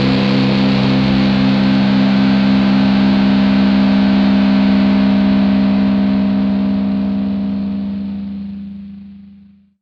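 Raw lo-fi black metal: a held, distorted electric guitar chord ringing out and fading away, dying to silence just before the end.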